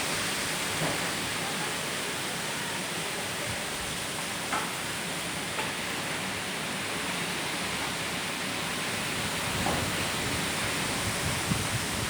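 Steady rushing hiss of a wind storm, even throughout, with a few faint taps about a second, four and a half, five and a half and ten seconds in.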